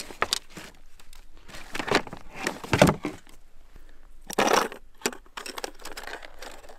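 Irregular rustling and crinkling with scattered clicks as gloved hands handle gear. The loudest rustles come about three seconds in and again about four and a half seconds in.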